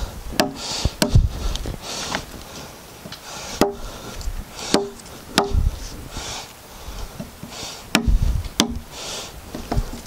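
Hammer and chisel cutting into a wooden log cant to dig out embedded bullets: about eight sharp, irregularly spaced strikes, with fainter scraping of wood between them.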